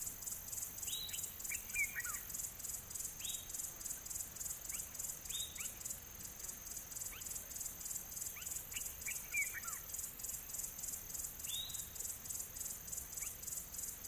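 Insects chirring in a fast, even pulse, with a bird giving short, high calls that sweep downward every few seconds.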